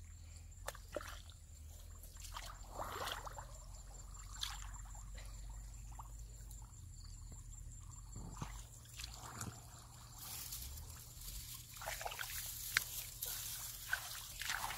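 Hands scooping and sloshing in shallow muddy water, with small splashes and trickles coming in irregular bursts.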